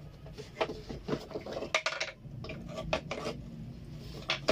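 Electronic weighing scale's plastic and metal housing being handled and tilted open: irregular clicks, knocks and rattles, with a louder knock near the end.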